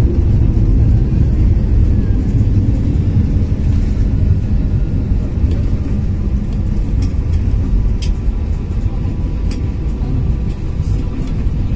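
Airliner cabin noise as the plane rolls along the runway after landing: a steady low rumble of engines and wheels, easing slightly, with a few light clicks in the second half.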